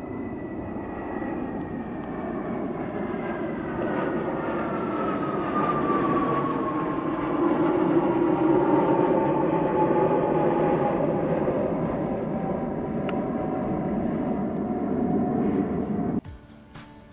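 Jet aircraft flying past, likely Blue Impulse Kawasaki T-4 trainers: a jet roar swells to a peak and eases off while a high whine glides slowly down in pitch as the aircraft pass. The sound cuts off abruptly near the end.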